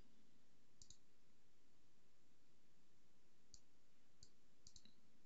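A handful of faint computer mouse clicks over a low steady hiss: a pair about a second in, then several more near the end.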